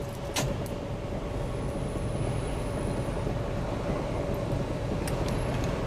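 Steady low engine rumble of an ice-cream van running at a standstill, with a faint steady hum and a couple of light clicks, one just after the start and one near the end.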